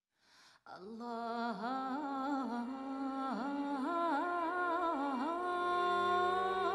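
Soundtrack music: a single melodic line with sliding, ornamented notes, with a steady low drone coming in near the end.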